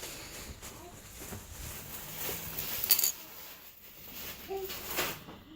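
Light taps and clicks of jigsaw puzzle pieces being handled on a surface, with one sharp click about three seconds in.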